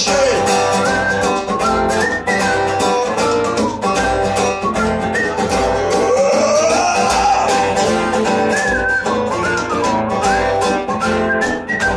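Instrumental break in a live song: strummed acoustic guitar with a steady beat, and a lead melody with sliding notes over it.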